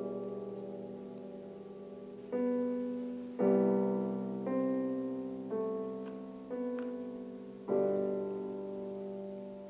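Background piano music: slow, gentle notes and chords, each struck and left to ring and fade, with a new one about once a second after a pause near the start.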